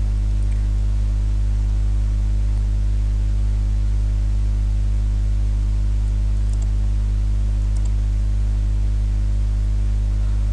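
Steady electrical mains hum, a low tone at about 50 Hz with its overtones, over a faint hiss, picked up by the recording setup. A couple of faint clicks come near the middle.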